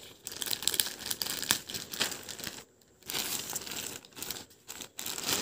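Thin plastic courier polybag crinkling and rustling as it is handled, with a brief pause about halfway through.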